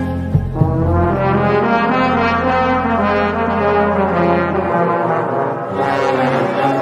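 Cinematic background music of sustained brass chords. A deep bass drone underneath drops out about two-thirds of the way through.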